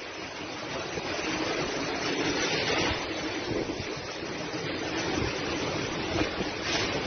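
Typhoon-force wind and heavy driving rain: a steady, even hiss of rain and wind.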